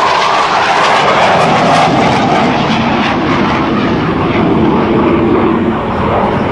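Blue Angels F/A-18 Hornet's twin General Electric F404 jet engines as the jet flies by, a loud steady jet noise that drops in pitch as it passes.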